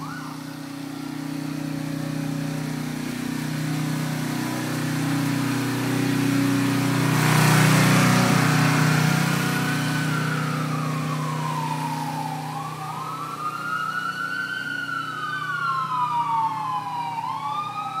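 Emergency vehicles: heavy engines running, swelling loudest about 8 seconds in as one passes close. From about 12 seconds in, sirens wail in slow rising and falling sweeps, with two or more overlapping near the end.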